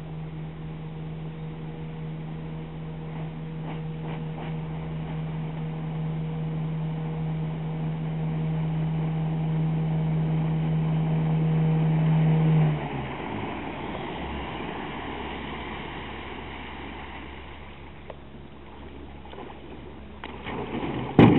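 1976 Johnson 9.9 hp two-stroke outboard running flat out on a speed run, a steady engine note that grows louder as the boat approaches. About thirteen seconds in the engine note cuts out abruptly, leaving the wash of water as the boat coasts in, and a sharp knock comes near the end.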